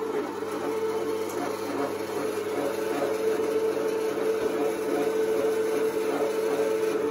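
Electric stainless-steel meat grinder running with a steady motor hum while grinding chunks of raw meat into mince.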